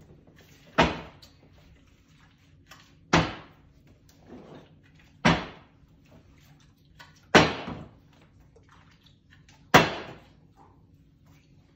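Plastic water bottle flipped and landing on a tabletop five times, about every two seconds, each landing a sharp thud.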